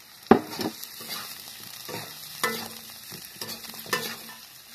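Chicken feet frying in a pan with browned onion and ginger-garlic paste, sizzling steadily while a spatula stirs them and knocks against the pan several times. The sharpest knock comes about a third of a second in.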